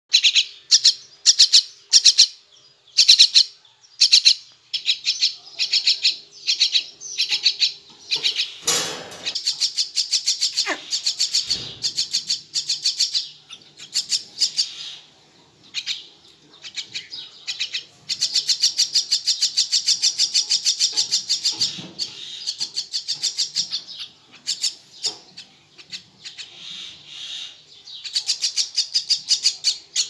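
Young myna chick giving harsh begging calls for food. Short calls come about once a second at first, then long runs of fast repeated calls. There is a brief rustle about nine seconds in.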